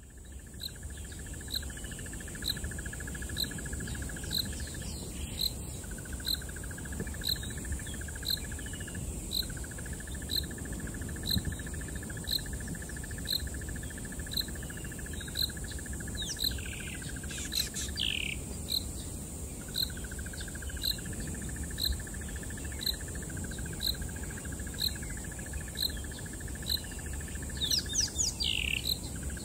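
Wild bush ambience: insects trilling steadily with short breaks, a high pip repeated about twice a second, and a few quick chirping calls about halfway through and again near the end.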